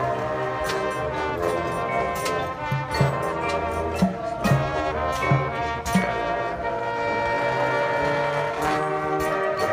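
Drum and bugle corps playing in full: the brass section holds loud sustained chords, and a run of heavy low drum hits comes about three to six seconds in.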